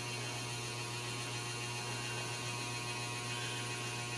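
Steady low electrical hum with a faint hiss, unchanging, with no kitten cries or other distinct sounds.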